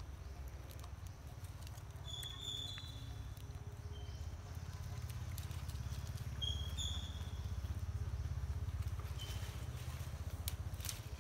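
Outdoor ambience: a steady low rumble with a fluttering edge, with a few short, high chirps scattered through and some faint clicks near the end.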